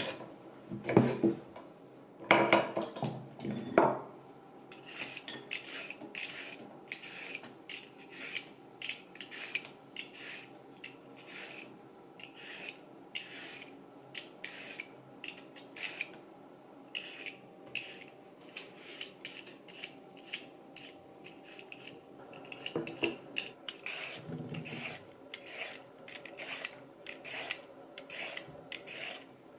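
Dishes and utensils knocking and clattering for the first few seconds, then a long run of short rasping strokes, about two a second, from kitchen work with utensils.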